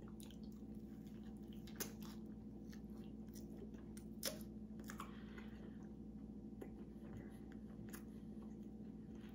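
A person chewing a waffle spread with peanut butter: soft, irregular mouth clicks and smacks, two of them louder about two seconds and four seconds in, over a steady low hum.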